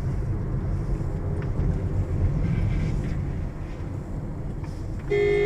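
Low, steady road and engine rumble heard from inside a moving car. A steady pitched tone starts abruptly near the end.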